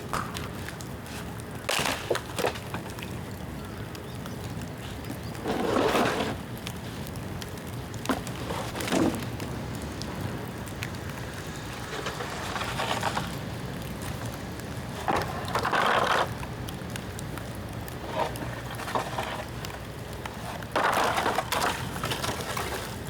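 Bamboo bonfire burning, with a steady low background and short bursts of crackling and snapping every few seconds, plus a few sharp pops.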